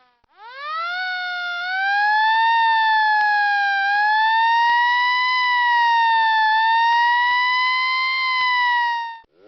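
Warning siren of the air-raid type winding up from a low pitch to a high wail over about a second and a half, then holding a loud, steady wail that drifts slowly up and down, and cutting off abruptly near the end.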